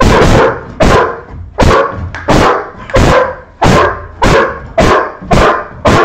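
Working dog barking in a fast, even series, about one and a half barks a second. The barking is excited demand barking: the dog has been worked up in prey drive and is eager for a ball.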